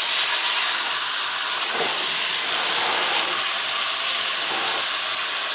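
Beef roast searing in butter and oil in a cast iron pot, a steady sizzle from the freshly turned side.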